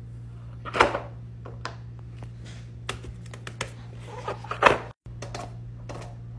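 Plastic fidget toys being handled: irregular clicks and taps, the loudest about a second in and near the end, over a steady low hum.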